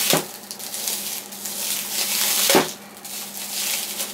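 Hands working at a gift box's packaging, with rustling and crinkling and two sharp knocks about two and a half seconds apart.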